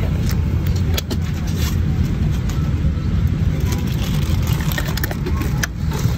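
Steady low drone of a Boeing 787-8 passenger cabin, with a few sharp clicks and knocks as the in-flight entertainment handset is pulled from its armrest holder and handled.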